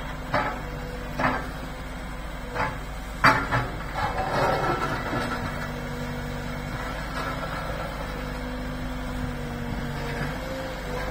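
Liebherr 922 rail-road excavator's diesel engine running steadily, with several sharp clanks and knocks of its grab bucket and broken crossing rubble in the first few seconds, then a rattle of debris about four seconds in.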